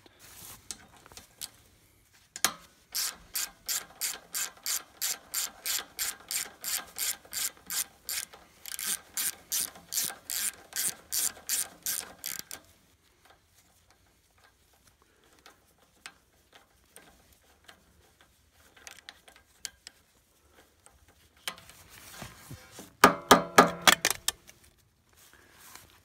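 Hand socket ratchet clicking in quick, even runs, about four clicks a second, as the bolts holding the valve cover on a small engine are turned out. A quieter stretch follows, then a short, louder run of ratchet clicks near the end.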